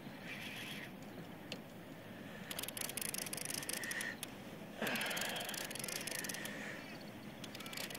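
Fishing reel's ratchet clicking rapidly as line is pulled off by a hooked fish, in three runs of about one to two seconds each, over a steady hiss of wind and water.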